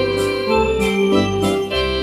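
Home organ played as a four-hand duet: held chords over a steady, evenly pulsing bass beat.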